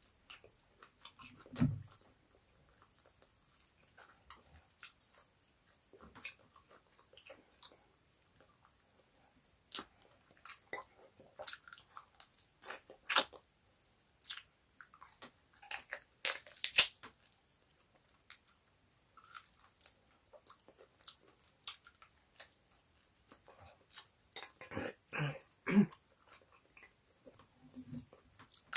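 A person eating close to the microphone: biting and chewing meat off the bone, with irregular wet smacks, clicks and crunches, the loudest a little past halfway through.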